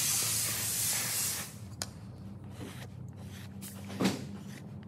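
A hand sanding board rubs over body filler on a plastic bumper: one hissing stroke lasting about a second and a half. Scattered light clicks follow, then a sharp knock about four seconds in.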